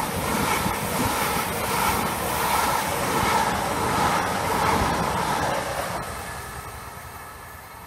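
Great Western Railway Class 800-series intercity train passing close at speed: a steady rush of wheel-on-rail and running noise that fades away over the last couple of seconds as the train recedes.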